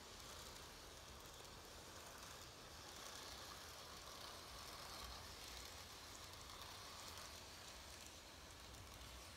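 Faint running noise of TOMIX N gauge model trains (185 series and 251 series) on their track, a soft even hiss that grows a little louder around the middle as a train passes close.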